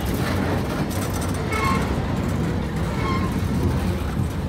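Steady low rumble of a vehicle running, with a few faint short tones on top.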